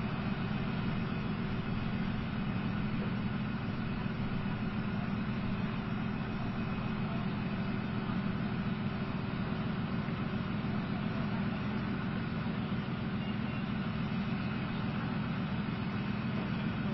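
Diesel engines of tracked M113-type armoured personnel carriers idling steadily, a constant low hum.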